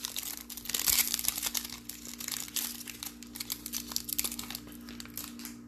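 A foil trading-card pack being torn open and its wrapper crinkled in the hands: dense crackling that thins out near the end, over a steady low hum.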